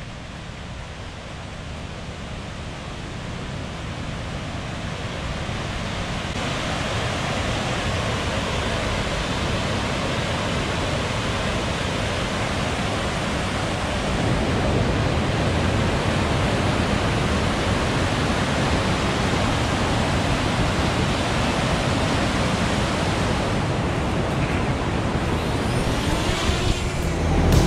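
Steady rush of water from a river waterfall and rapids, growing louder at first and then louder again about halfway through. A faint rising whine comes in near the end.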